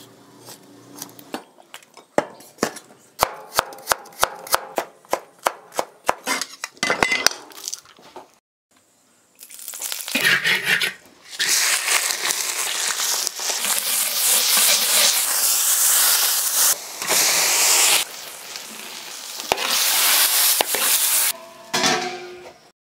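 A kitchen knife chopping on a wooden board in steady strokes, about two a second, cutting up yellow-head catfish. After a short pause, oil sizzles loudly in a wok as scallion, ginger and dried chilies fry, the hiss broken by a few brief cuts.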